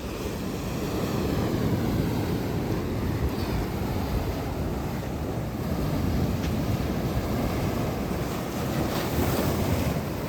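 Sea waves washing onto a shore in a continuous surging wash, swelling about a second in and easing near the end, with wind buffeting the microphone.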